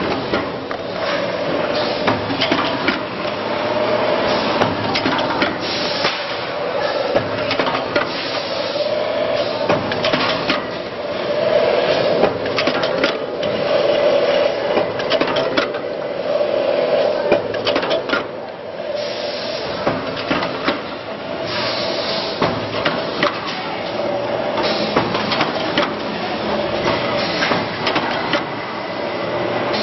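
Paper tube curling and notching machine running: a steady mechanical hum with frequent irregular clacks and knocks as tubes are fed and their ends curled.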